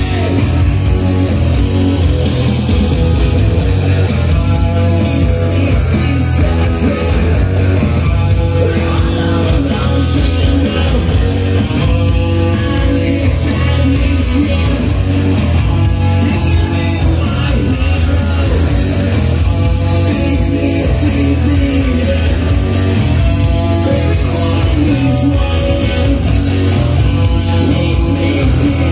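A rock song with singing and guitar, with strong bass, played back through JBL 4312 three-way speakers driven by a vintage Sony TA-3650 integrated amplifier.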